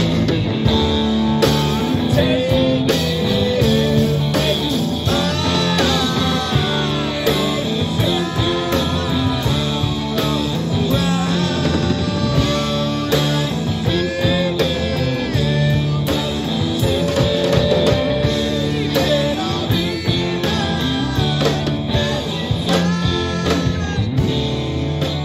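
Live rock band playing: electric guitars, bass guitar, drum kit and keyboard together, with lead lines that bend in pitch.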